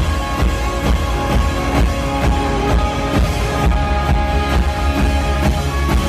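Live rock band playing loudly: a drum kit keeping a steady beat under electric and acoustic guitars.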